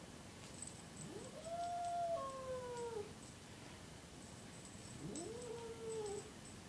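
Siamese cat yowling in distress: two long, drawn-out yowls, the first starting about a second in and lasting about two seconds, rising steeply, holding, then sliding down in pitch, the second shorter, about five seconds in. It is the cry of an unhappy, upset cat.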